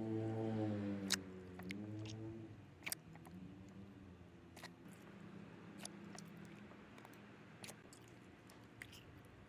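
Slime being squeezed and poked, giving scattered sharp clicks and pops. A low humming tone is heard in the first two seconds or so and then fades.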